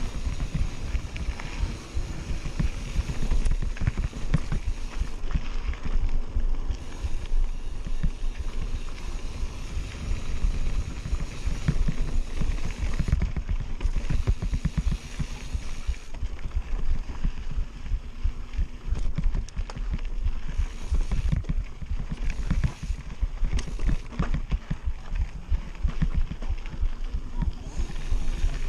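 Mountain bike descending rough dirt singletrack at speed: a steady wind rumble on the action camera's microphone with a constant clatter of the bike rattling over bumps and stones.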